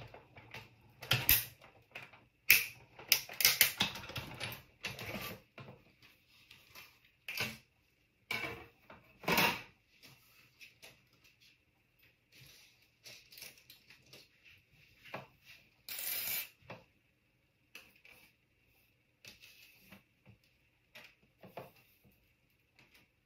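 Big Shot hand-cranked die-cutting machine rolling a metal die and cutting plates through, with a dense run of clicks and knocks over the first ten seconds. After that come a short louder rustle about sixteen seconds in and a few faint scattered taps as plates and die are handled.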